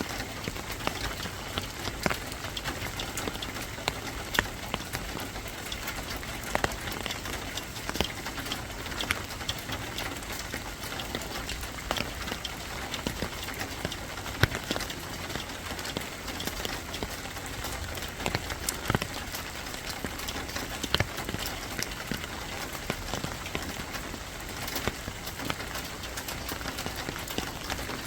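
Steady rain hiss with many irregular sharp drops tapping on a surface.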